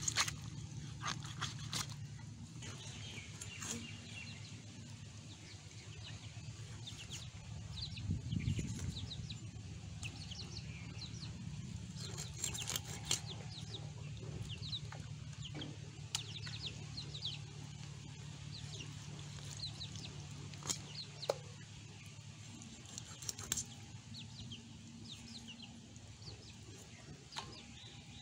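Chickens clucking and chirping in the background over a steady low hum, with a few sharp clicks from a curved blade cutting raw chicken pieces.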